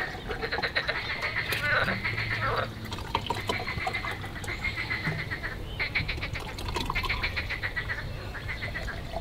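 Wine spritzers being poured: liquid poured from glass bottles into two glasses, gurgling in quick pulses in several bouts, with carbonated soda water fizzing in the glass.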